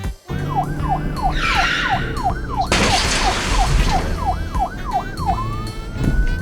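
Police siren sound effect: a fast, repeated falling wail, about three sweeps a second, that ends in a single rising sweep near the end. Under it runs a low car-engine rumble, and a loud burst of rushing noise comes in the middle.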